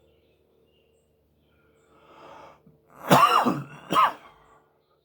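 A soft exhale, then a man coughs twice, loudly and about a second apart, after a hit from a cannabis vape pen.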